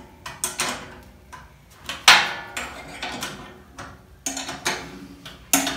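Metal spanner clinking against M8 bolt heads and the steel wheel-kit bracket as the bolts are tightened: a run of irregular sharp clicks, with one louder clank about two seconds in.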